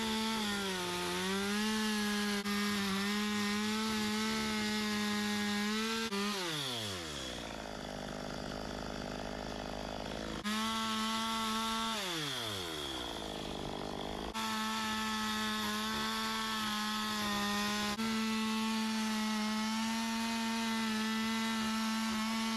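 Chainsaw carving into a wood slab, its engine held at high revs. Twice it drops to idle with a falling pitch and then revs back up.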